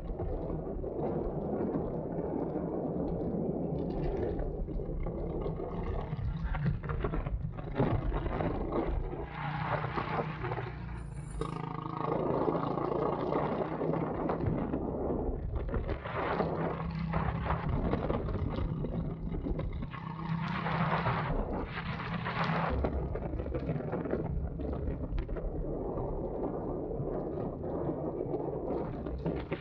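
Go-kart engine running as the kart laps the track. The engine note shifts over the lap, with a rushing noise that swells and fades over it.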